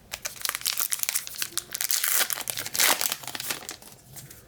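Plastic-foil wrapper of a trading-card pack crinkling as it is handled and torn, a dense run of sharp crackles that dies away shortly before the end.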